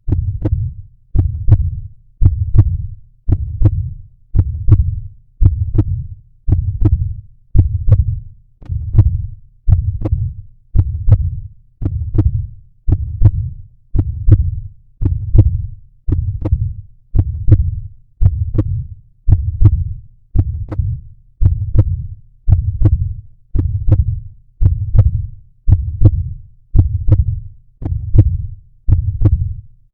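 Heartbeat sound effect beating steadily at about one beat a second, each beat a low double thump (lub-dub).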